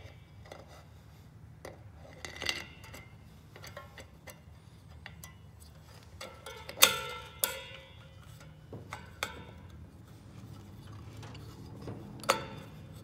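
Scattered light metal clicks and clinks as a Harley-Davidson Shovelhead clutch pressure plate is worked by hand onto its offset studs. The two loudest clinks come about seven seconds in and ring briefly.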